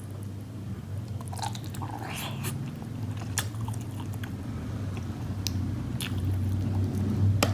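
Close-miked mouth sounds of eating meatball soup with rice vermicelli: chewing, with wet smacks and short clicks scattered through. A steady low hum runs underneath.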